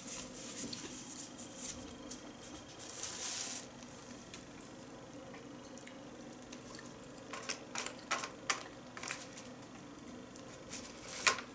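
Close-up eating sounds: wet chewing and mouth noises, then a few sharp clicks of wooden chopsticks against a plastic food tray in the second half.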